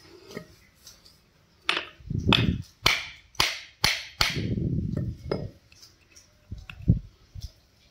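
Hammer striking a steel part of a combine harvester cutter motor: about six sharp metallic blows, roughly two a second, each ringing briefly, then a few lighter knocks.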